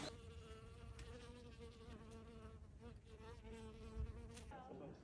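A flying insect buzzing close by: a steady, faintly wavering hum that stops about four and a half seconds in. A soft knock about four seconds in.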